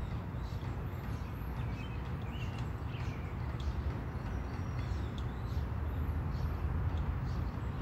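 Outdoor ambience: a steady low rumble, with a few faint bird chirps now and then.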